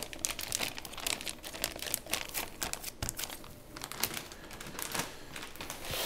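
Clear plastic bag crinkling and rustling in irregular crackles as a slab of raw beef is worked into it and the bag is handled.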